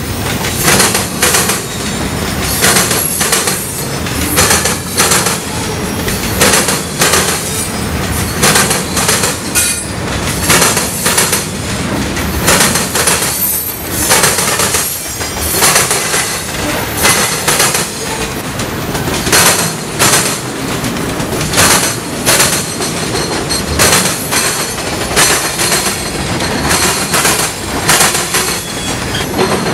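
Freight cars of a long mixed freight train rolling past close by: a steady rumble of the cars, with the steel wheels clicking over the track again and again in uneven bunches.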